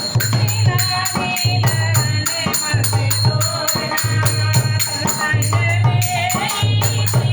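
Devotional folk song to the Mother Goddess (maiya ke geet): a voice sings a bending, ornamented melody over a steady beat of crisp percussion strokes, about four a second.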